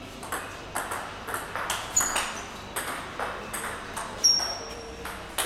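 Table tennis rally: the ball clicking sharply off the bats and the table in quick alternation, about three hits a second. There are a couple of short high squeaks in the middle.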